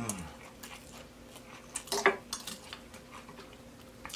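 A metal fork clinking and scraping on a plate, with the loudest, ringing clink about two seconds in, among small mouth sounds of chewing. A short, falling hum of enjoyment comes at the start.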